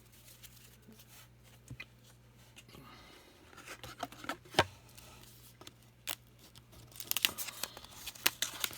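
Trading card pack wrappers being handled and torn open: a few scattered rustles and sharp clicks at first, then a dense run of crinkling and tearing near the end.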